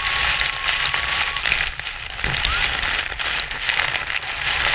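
Waterfall spray and rushing water at Iguazu Falls, a loud, steady crackling hiss like heavy rain.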